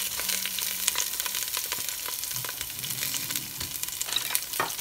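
String beans sizzling in a little oil in a stainless steel pan as they are stirred: a steady crackle with scattered small pops.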